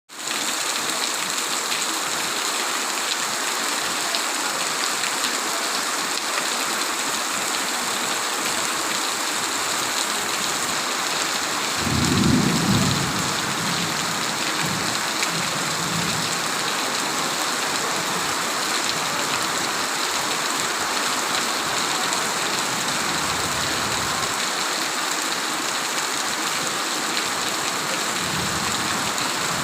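Steady rain falling, an even hiss throughout. About twelve seconds in a brief low rumble swells up and fades, with fainter low rumbles later on.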